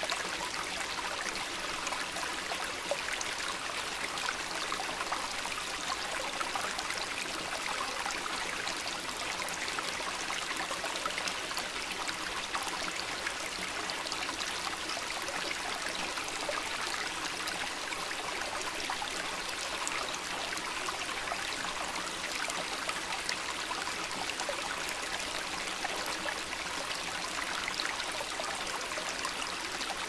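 Shallow rocky stream: water running and trickling over stones, a steady rushing with many fine splashes.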